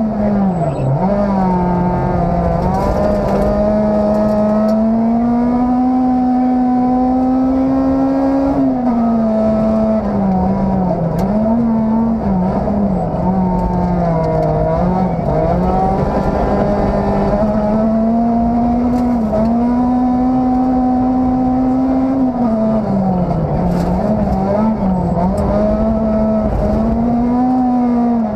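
Rally car engine at speed, heard from inside the cabin. Its pitch climbs slowly and then drops sharply several times. Underneath is a steady low rumble of tyres on the snow-covered road.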